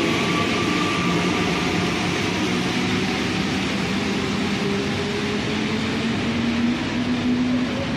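Santiago Metro NS93 train's GTO-inverter traction motors whining in steady tones over the train's running noise. The pitch of the whine rises slowly, as it does while the train gathers speed.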